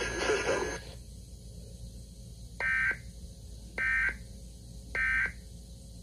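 Three short bursts of Emergency Alert System digital data tones, a two-pitch electronic screech, about a second apart. Their shortness fits the end-of-message signal that closes an EAS alert. Before them, the television's speech-and-music sound cuts off just under a second in.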